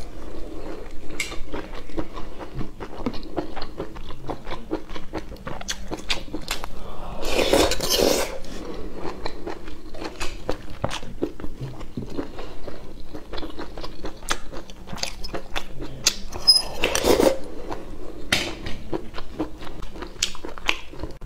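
Close-miked wet chewing and mouth smacking of scallops with glass noodles, with many small clicks of a fork against the scallop shells. Two louder, longer mouth sounds stand out, about a third of the way in and again near the end.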